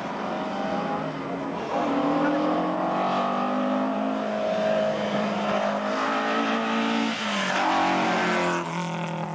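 Group A racing hatchback's engine at full throttle, revs rising and falling through the gears, with a sharp drop in pitch about seven seconds in. It gets loudest as the car passes close near the end.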